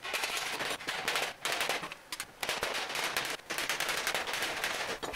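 Hammer striking a thin sheet of roofing aluminium, a rapid run of sharp metallic taps with a few short pauses, beating down the seam of a sheet-metal cone.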